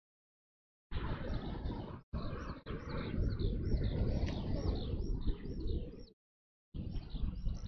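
Small birds chirping in a quick run of short high calls, about three a second, over a steady low rumbling noise. The audio cuts out to dead silence several times and cuts back in abruptly, the way a live stream's sound drops out.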